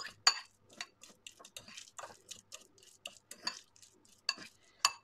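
Metal fork mashing and stirring egg yolk in a glazed ceramic bowl: irregular clinks and short scrapes of the tines against the bowl, a few each second.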